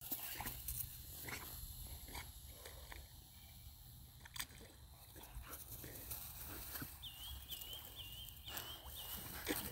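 A pit bull swimming in a pond: faint, scattered soft splashes and short breaths as it paddles. About seven seconds in come five quick high chirps.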